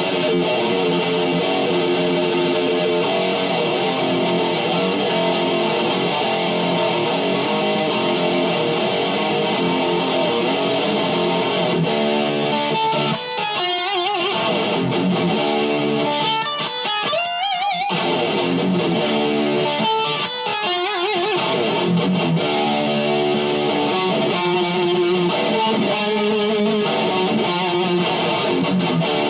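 Electric guitar playing metal riffs, with a few wavering, bent notes around the middle.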